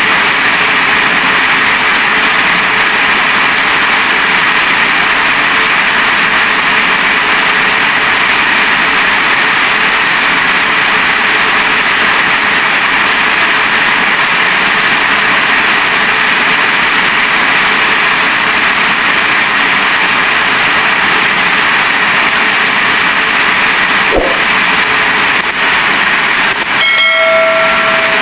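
Heavy rain falling steadily, a loud, even hiss. A single knock comes about 24 seconds in, and a brief pitched tone sounds near the end.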